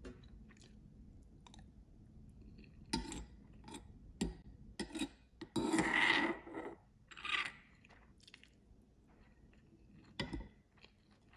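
Close-up eating sounds: chewing and crunching mixed with short clicks and scrapes, the loudest burst about six seconds in.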